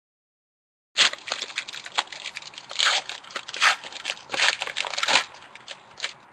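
A trading-card pack's wrapper being torn open and crinkled by hand, a dense run of crackling and sharp clicks that starts suddenly after about a second of dead silence.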